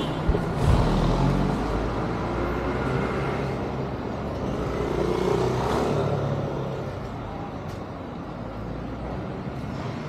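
Road traffic: a motor vehicle's engine running close by, swelling about five seconds in and then easing off.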